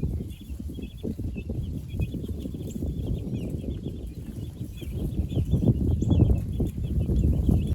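A flock of broiler chickens (meat birds) giving many short, high peeps and clucks, over a loud low rumbling, knocking noise that grows louder in the second half.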